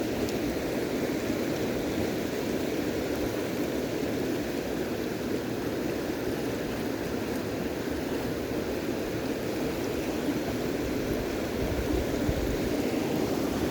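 Flowing river water, a steady rush.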